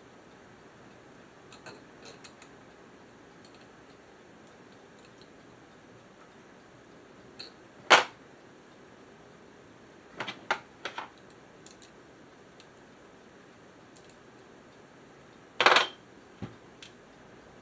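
Small metal parts of a record-changer motor clicking and clacking as they are handled and fitted back together by hand: a sharp knock a little before halfway, a quick run of clicks soon after, and a longer clatter near the end.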